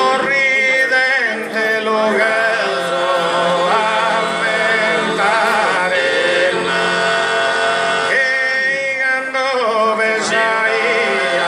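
Sardinian canto a tenore: four men singing unaccompanied in close harmony, a lead voice moving over steady low held chord voices.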